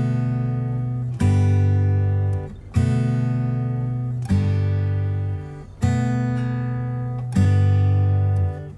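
Background instrumental music: a chord struck about every one and a half seconds, each ringing out and fading before the next.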